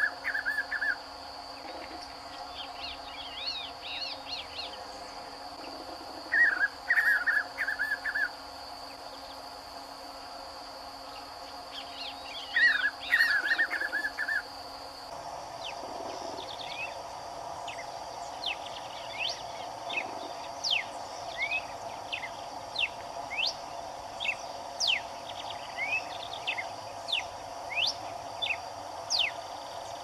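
Spot-backed puffbird singing three loud, choppy phrases about six seconds apart, with thinner high notes between them, over a steady high insect drone. About halfway through, a red-cowled cardinal takes over with a run of short, sharp whistled notes, one or two a second.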